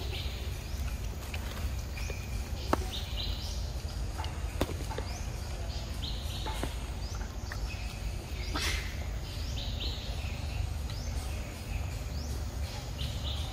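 Forest ambience: short rising bird chirps repeating every second or so over a steady low rumble, with a few sharp clicks.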